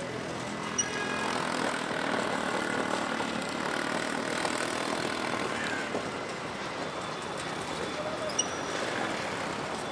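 Busy city street ambience: steady traffic noise with a faint mix of voices, and two brief sharp clicks, one about a second in and one near the end.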